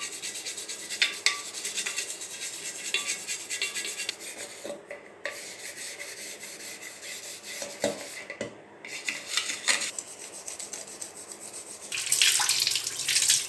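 Toothbrush bristles scrubbing toothpaste over a silver pot in quick back-and-forth strokes, pausing briefly twice. About twelve seconds in a tap starts running, and water splashes over the silver piece being rinsed.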